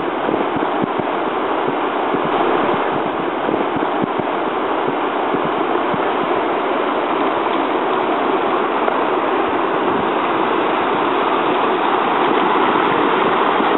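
Flash-flood surge of muddy water gushing down a dry creek bed: a loud, steady rush that slowly grows louder.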